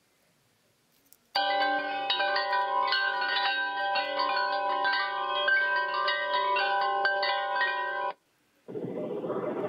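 Wind-chime sounds, many overlapping ringing tones struck again and again, played by an interactive installation's electronic touch board when a hanging pine cone is touched. They start about a second in and cut off suddenly near the end.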